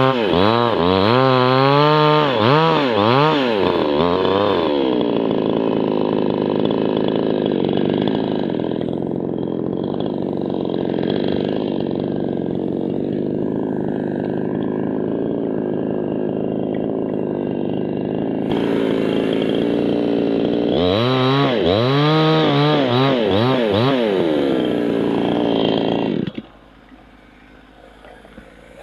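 Chainsaw cutting birch wood. The engine first surges up and down rapidly, then runs at a steady pitch through a long cut, surges again, and drops away abruptly near the end.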